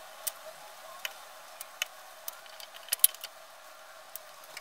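Light scattered clicks and taps of wood being handled while a glued pine runner strip is fitted and pressed into place inside a wooden frame, about ten in all, the sharpest about three seconds in, over a faint steady hiss.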